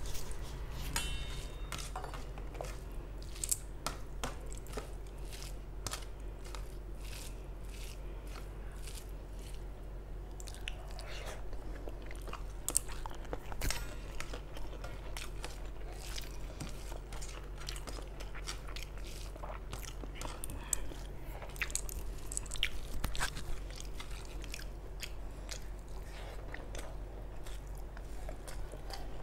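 Close-up eating sounds: a person chewing and biting through mouthfuls of hand-mixed rice and fried spiny gourd, with many short wet clicks and crunches. A steady low hum runs underneath.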